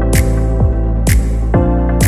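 Electronic background music with a steady beat: a low kick drum about twice a second and a sharp hit about once a second, over held chords.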